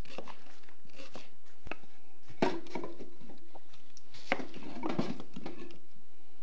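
Firewood being handled and put on the campfire: irregular wooden knocks and clatters, a few at a time.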